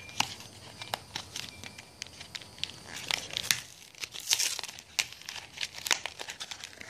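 Foil Pokémon trading-card booster pack wrapper crinkling and tearing as it is opened by hand: an irregular run of sharp crackles, a few louder ones partway through.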